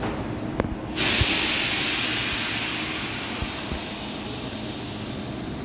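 Compressed air venting from a stopped Seoul Line 1 electric train's pneumatic system: a sudden loud hiss about a second in that slowly fades away, after a short click.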